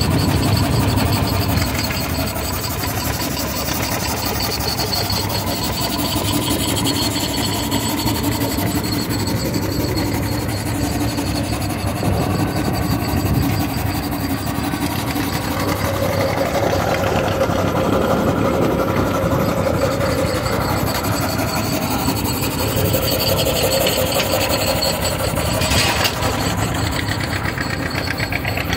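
Wood Bros. steam traction engine running steadily under belt load, driving a shingle mill, with a fast even mechanical rhythm. A steady humming tone joins in through the middle, and there is a short hiss-like burst near the end.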